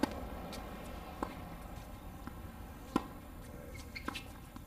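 Tennis ball struck by racket strings during a doubles point: a sharp pop of the serve at the start, a fainter hit about a second later, a louder hit about three seconds in, and a few faint knocks near the end.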